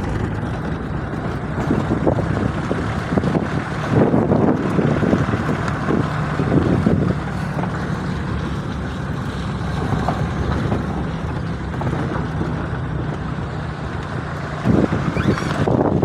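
A vehicle driving on a rough mountain road: steady engine hum under road and wind noise, louder for a few seconds around the middle and again near the end.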